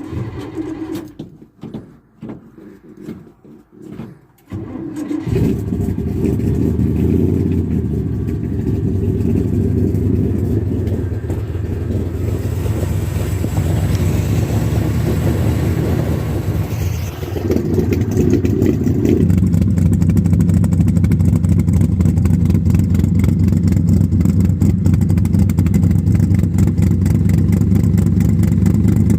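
Car engine with a Holley 850 double pumper carburetor cranking in short pulses, catching about five seconds in, then running loud. It is revved unevenly for a while before settling to a steady idle. The engine is cold, just started after a 3.5 power valve was fitted to cure a lean primary side.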